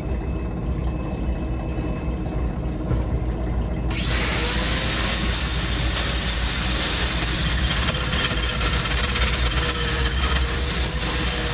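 Drill press motor running steadily; about four seconds in, a flap disc starts grinding the spinning aluminium piece, adding a loud abrasive hiss over the hum.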